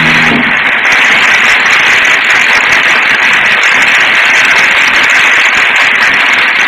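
Studio audience applauding as a song ends, on an old radio transcription recording with a narrow, muffled top end. The orchestra's last held note dies away within the first half second.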